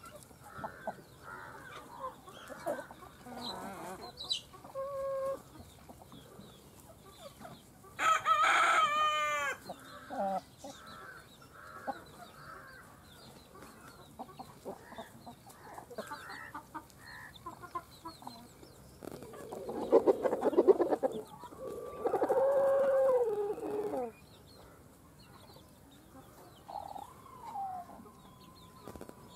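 Chickens clucking in short calls throughout, with two loud longer calls about 8 and 22 seconds in, the second a rooster crowing with a long held note that falls at the end. A brief burst of noise comes just before the crow.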